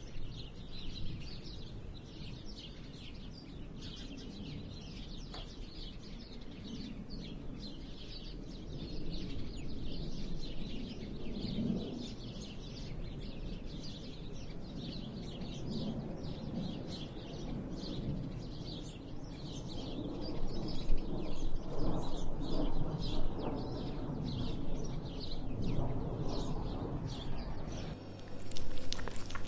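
Many small birds chirping steadily in the background. Beneath them come irregular licking and chewing sounds of a cat eating wet fish paté from a saucer, louder in the second half.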